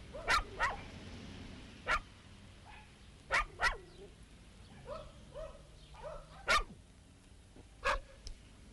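A dog barking: about seven short, sharp barks, single and in quick pairs, with softer yelps between them around the middle.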